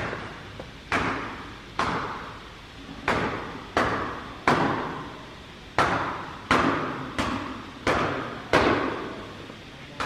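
Repeated sharp knocking blows, about one a second and about ten in all, each followed by a long echo around the large brick hall.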